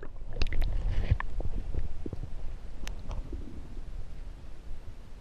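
Low rumbling and a few clicks on the microphone, heaviest in the first second and a half, over a steady hiss of flowing river water.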